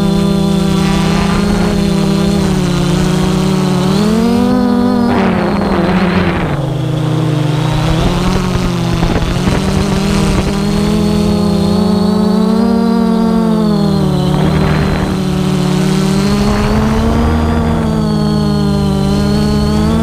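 Quadcopter drone's electric motors and propellers humming, the pitch rising and falling as it manoeuvres, with a steady high whine above. Brief rushes of noise break in about five seconds in and again near fifteen seconds.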